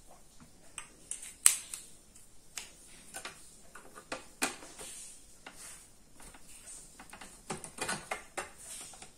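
Screwdriver and fingers clicking and tapping against the metal case and power supply board of an opened satellite set-top box as its fixing screw and nut are undone. The clicks are irregular, the sharpest about a second and a half in, with a quick run of them near the end.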